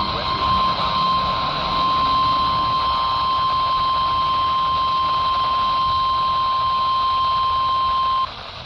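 NOAA Weather Radio 1050 Hz warning alarm tone coming over a weather radio receiver: one steady, unbroken tone with radio hiss under it, cutting off suddenly near the end. The tone marks the start of a warning-level alert, here a severe thunderstorm warning.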